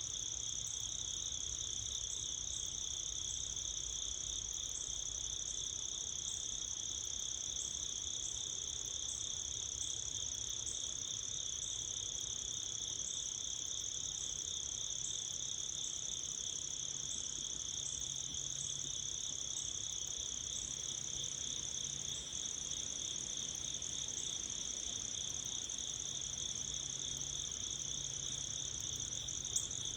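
Steady chorus of insects, typical of crickets: a continuous high trill in two bands that does not let up, over a faint low rumble.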